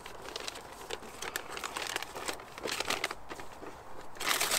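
Brown kraft-paper wrapping on a parcel crinkling and tearing as it is pulled open by hand: a run of small crackles, with a louder rustle near the end.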